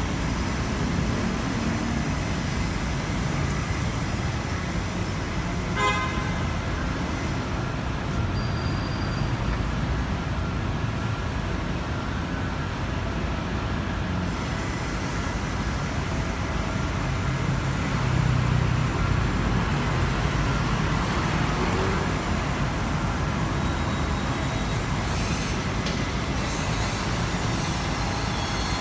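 City street traffic: a steady rumble of car engines and tyres going by, with a brief pitched beep about six seconds in and a louder vehicle passing about two-thirds of the way through.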